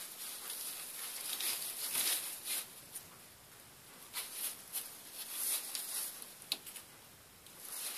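Pet rats moving about a wire cage: scattered light scratching and rustling, in short irregular bursts.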